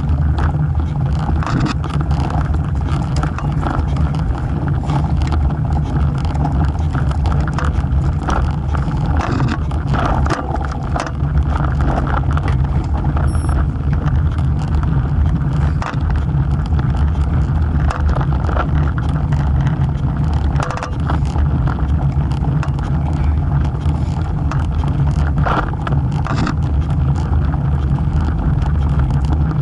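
A road bike rolling over asphalt, heard through a camera mounted low beside the wheel: a steady, deep rumble of wind and road noise on the microphone, broken by frequent small knocks and rattles from bumps in the surface.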